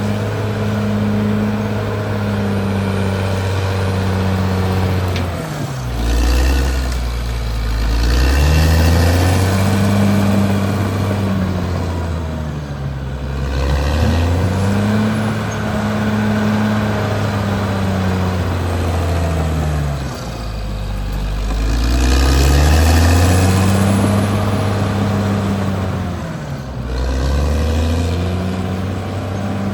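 Caterpillar D6R XL bulldozer's diesel engine running hard, its pitch sagging and climbing back about four times as the engine speed drops and recovers.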